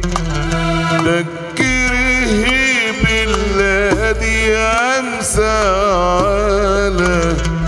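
Arabic song performed live: a man singing an ornamented, wavering melody, accompanied by oud, violin, darbuka and keyboard.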